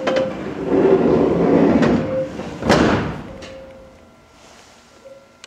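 Tokyu 8500 series train's sliding doors closing: a loud noisy rush ending in a sharp thud about two and a half seconds in, then dying away.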